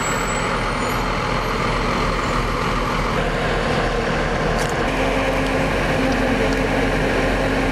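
Military vehicle engine running with a steady drone, heard from on board a vehicle in the convoy. A steady low hum comes in about five seconds in.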